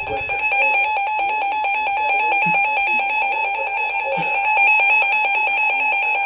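NOAA weather radio receiver sounding its alert tone for a flash flood warning: a loud, steady electronic alarm tone with a fast, even pulsing.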